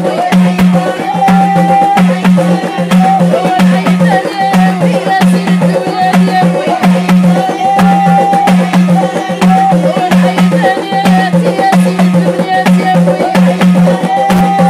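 Moroccan folk music: a small taarija goblet drum beaten by hand in a steady, quick rhythm over a loud melodic accompaniment.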